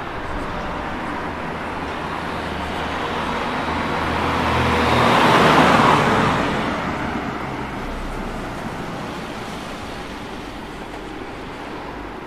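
A car passing close by on the street: tyre and engine noise swells to a peak about halfway through and fades away, over steady background traffic.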